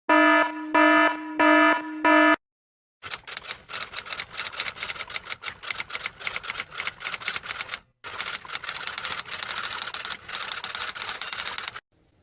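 Four short electronic beeps, each a chord of steady tones. Then a stretch of rapid typing, a fast run of key clicks, with a short break about halfway through.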